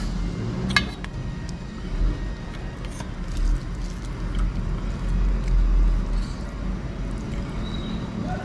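Steady low background rumble, with a sharp clink about a second in as a steel bowl is set down on a steel plate, and a few light clicks from eating off the plate by hand.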